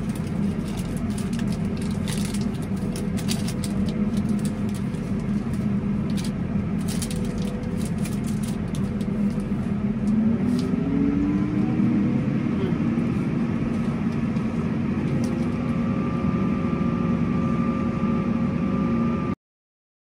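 Tractor engine running steadily, heard from inside the cab, with scattered light clicks and crackles over the first several seconds. About ten seconds in the engine speeds up with a rising tone, then holds at the higher speed.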